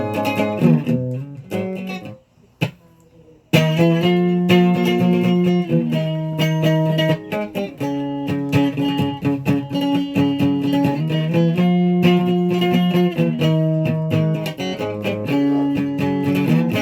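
Guitar being played, mostly held single notes and chords. The playing breaks off about two seconds in, with a single click in the gap, and starts again about a second and a half later.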